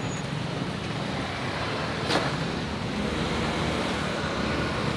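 City street traffic: cars and motor scooters driving past, a steady mixed rumble, with one sharp knock about two seconds in.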